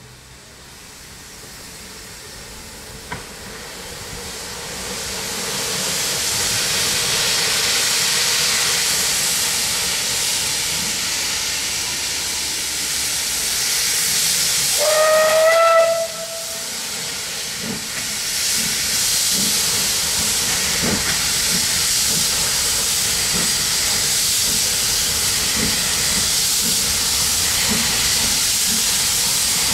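Beyer Peacock 2-4-0T steam tank locomotive hissing loudly as steam vents around its cylinders, the hiss building over the first few seconds. About halfway through it gives one short whistle, the loudest sound here. The engine then sets off with uneven exhaust beats under the hiss.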